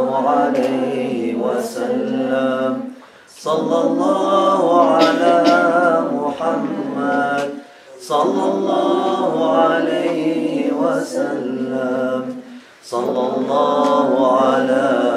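A small group chanting dhikr together without instruments, a melodic Islamic litany sung in phrases of about four to five seconds with short breath pauses between them.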